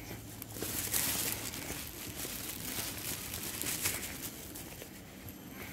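Irregular rustling and crunching while walking on a hiking trail, busiest from about a second in to about four seconds in.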